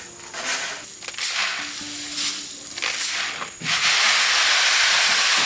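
Several short rasping strokes, then a loud steady hiss for about two seconds that cuts off suddenly.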